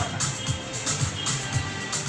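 Music with a steady drum beat and held high tones.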